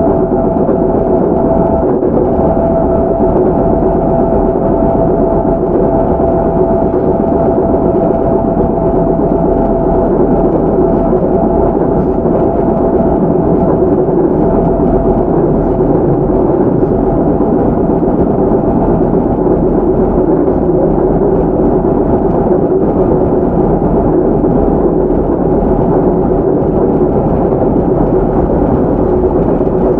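Running sound heard on board a JR 311 series electric multiple unit motor car at speed: a steady rumble of wheels on rail with a steady whine from its MT61 DC traction motors and gearing. A higher tone in the whine fades out about halfway through.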